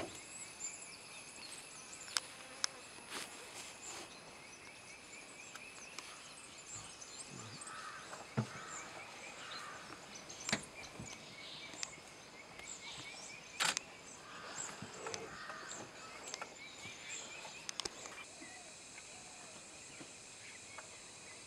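Meadow ambience of insects trilling steadily, with small birds chirping and scattered sharp clicks and knocks, one louder knock about two-thirds of the way through.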